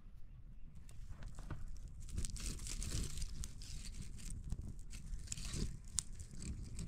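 Rustling and crinkling, with many scattered sharp clicks and cracks, from about a second in until near the end.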